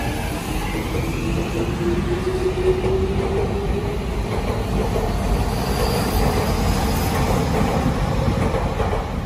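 Electric commuter train pulling away along the platform, its motor whine rising steadily in pitch as it gathers speed, over the rumble of the wheels on the rails.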